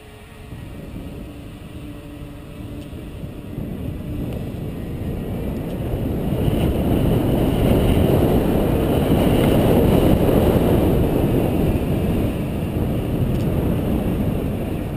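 Wind rushing over the microphone and mountain bike tyres rolling on asphalt as the bike picks up speed downhill, rising to its loudest around the middle and easing off toward the end.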